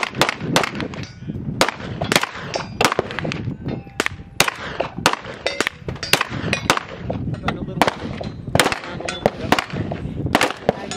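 Kriss Vector fired in quick single shots, about two or three a second in an uneven string, some shots sharper and louder than others.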